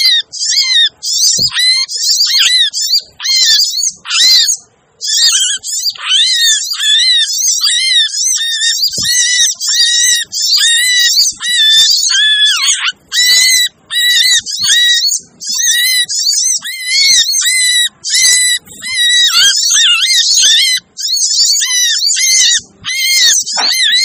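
Olive-backed sunbirds (sogok ontong) calling in a busy, noisy flock: a dense stream of quick, high chirps and twitters over a short note repeated again and again. This is a bird-trapping lure call (suara pikat), played to draw sunbirds in.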